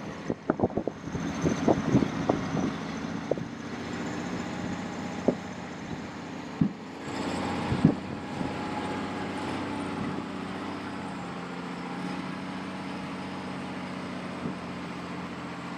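Heavy diesel machinery running steadily under load while the stuck log truck is pulled free, with a quick series of sharp knocks and clanks in the first few seconds and a few single knocks after.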